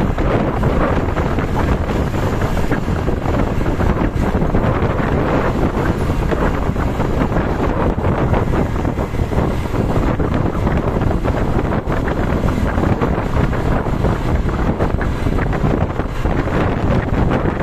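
Wind buffeting the microphone, over the steady rumble of a moving vehicle. No horn sounds.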